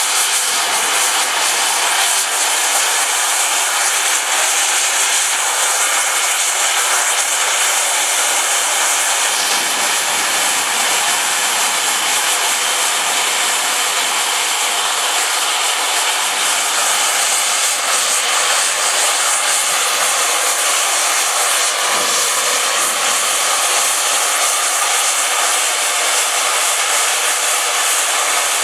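Steam locomotive blowing off steam: an LSWR M7 tank engine's safety valves, a steady, loud hiss that fills in a little lower about a third of the way through.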